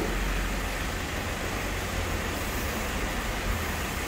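Steady background rumble with a hiss over it, with no distinct tool strikes or clicks.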